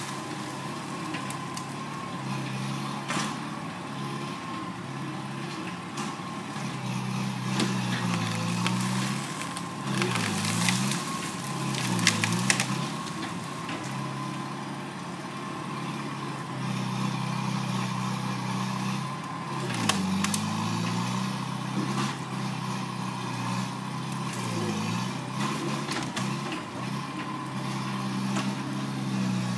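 Bobcat skid-steer loader's engine running, its pitch dipping and recovering several times as it is pulled down under load, with a few sharp knocks and clanks from the machine.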